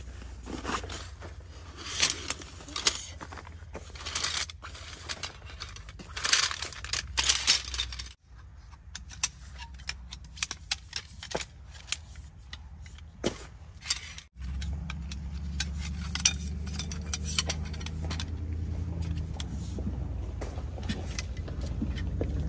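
Small hard objects clinking, jangling and scraping as they are handled, in short irregular bursts. After a sudden cut about fourteen seconds in, a steady low rumble runs beneath the clinks.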